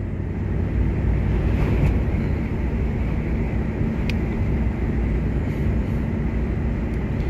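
Volvo semi-truck's diesel engine running at a steady pitch, with a constant low rumble of road noise, heard inside the cab while driving.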